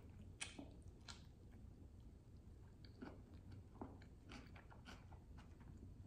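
Faint chewing of a soft burger, with small wet mouth clicks every half second to a second.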